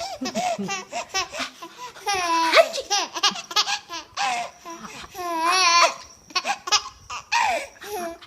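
Nine-month-old baby laughing in several bouts of high-pitched, squealing laughter with a rapidly wavering pitch, the longest two about two and five seconds in.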